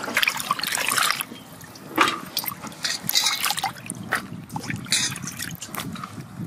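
Water sloshing as hands wash cut green papaya strips in a basin, for about the first second. After that, scattered drips and light knocks as the wet pieces drain in a perforated metal colander.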